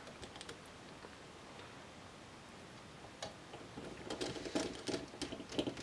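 Precision screwdriver with a Phillips 00 bit backing out the small screws that hold a laptop cooling fan to its heatsink: faint ticking and clicking, growing busier from about three seconds in.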